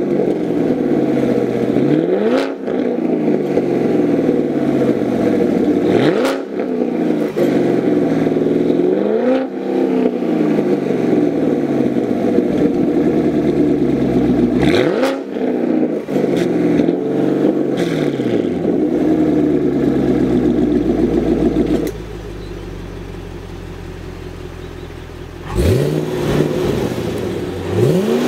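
2016 Chevrolet Camaro SS's 6.2 L LT1 V8 through a Baq cat-back exhaust with its valves open, being revved in place: a series of sharp throttle blips, each rising quickly and falling back to idle. About 20 s in it settles to a steady idle that drops quieter for a few seconds, then two more blips come near the end.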